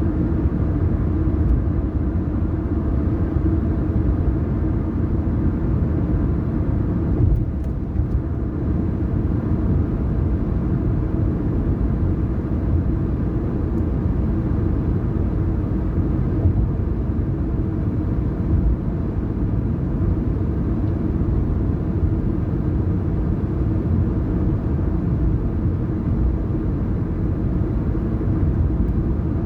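A car driving at a steady speed, with a constant low rumble of road and engine noise and a brief slight dip about seven seconds in.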